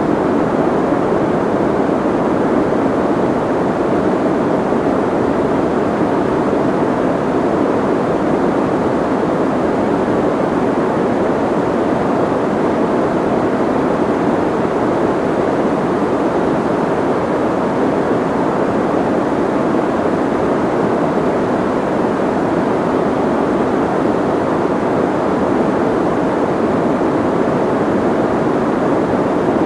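Soft white noise: a steady, unchanging rush with its weight in the low middle and little hiss at the top.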